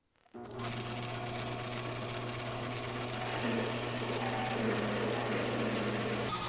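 An old metal lathe starts suddenly and runs with a steady hum, while a 9/16-inch drill bit in the tailstock bores into the spinning workpiece. A rougher cutting noise builds from about halfway through.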